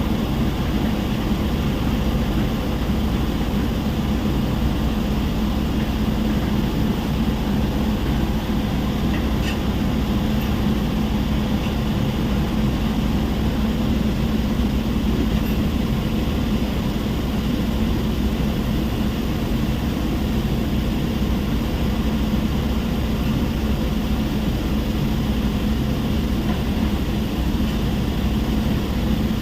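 Rock crushing plant and heavy diesel machinery running steadily: a continuous low drone with a steady hum.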